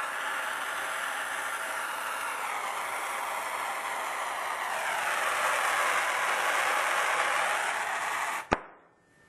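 Soldering torch flame hissing steadily while heating a copper pipe joint, a little louder after about five seconds. About eight and a half seconds in it stops abruptly with a sharp click.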